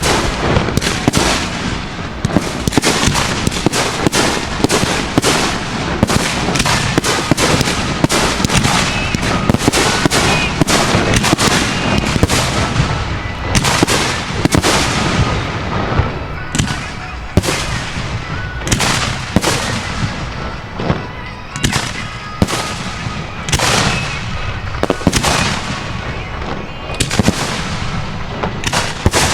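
Professional fireworks display heard from close by: aerial shells and cakes firing in a dense, continuous barrage, several sharp booms a second, each with a fading tail. The reports thin out slightly about halfway through.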